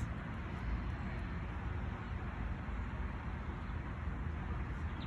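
Steady outdoor background noise: an even hiss over a low, wavering rumble, with no distinct events.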